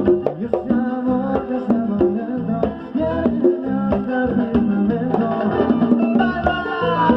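Drums fitted with synthetic heads being played in quick, steady strokes over music with held pitched notes.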